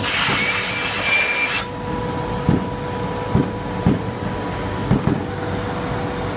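CNC plasma table's torch hissing as it cuts, stopping abruptly about a second and a half in. A steady machine hum with a thin high whine then runs on, with several short knocks.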